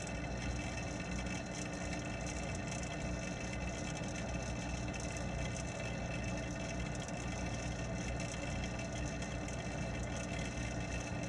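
Steady hum and hiss of the pond's water pump or filter, picked up underwater, unchanging throughout.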